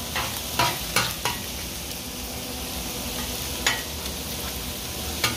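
Chopped bacon sizzling steadily on a Blackstone steel griddle while metal spatulas scrape and clack on the cooktop, turning the pieces: four quick scrapes in the first second and a half, then single ones near four seconds in and at the end.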